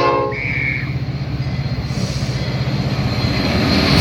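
Metra commuter train's diesel locomotive running close by, a steady pulsing rumble that grows louder. A short pitched tone sounds right at the start, and a brief high squeal follows about half a second in.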